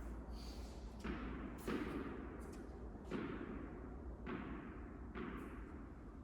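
Tennis ball being struck by rackets and bouncing during a rally, about five hits a second or so apart, each one echoing through the large indoor court hall.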